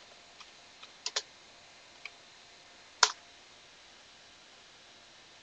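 Computer keyboard keys clicking as a command is typed: a few separate keystrokes, then one louder key press about three seconds in, which sends the command.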